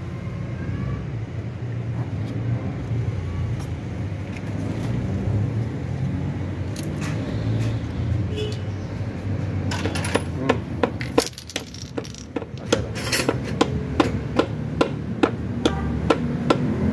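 Sharp metallic clicks and clinks, many in quick succession in the second half, as pliers work at the hub of a car's removed electric radiator cooling fan, over a steady low rumble.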